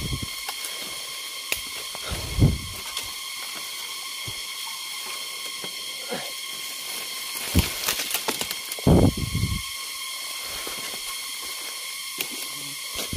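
A steady high hissing drone with several constant high tones in it, typical of a jungle insect chorus. Over it, bamboo stems and dry leaves rustle and knock, with a few dull thumps, the loudest about two and a half seconds in and again near nine seconds, and a brief patter of sharp clicks just before the second.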